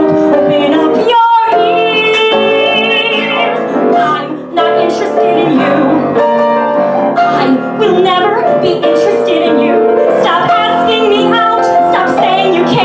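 A woman singing a song with piano accompaniment, holding several long notes.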